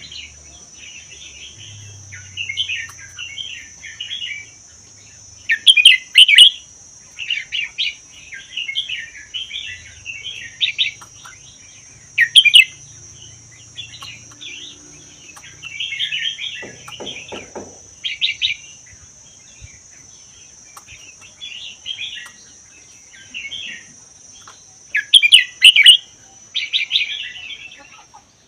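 Red-whiskered bulbul singing: short, warbled phrases one after another with brief pauses, a few of them much louder. A steady high-pitched drone runs underneath.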